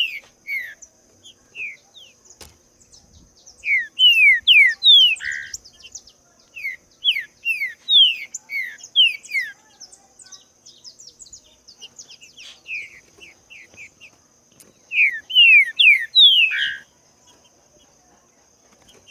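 Green-winged saltator (trinca-ferro) singing: loud phrases of quick down-slurred whistles, delivered in several bursts with short pauses between them.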